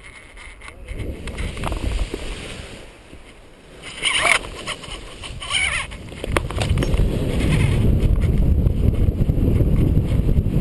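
Paraglider launch heard from a helmet-mounted camera: rustling and a few short sharp bursts near the middle as the pilot gets the wing up and runs, then from about two-thirds in a steady rush of wind over the microphone as the glider takes off.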